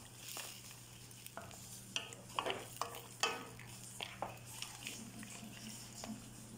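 Wooden spatula stirring crab in coconut milk in a metal wok, with irregular scrapes and knocks against the pan every half second or so over a faint simmering sizzle.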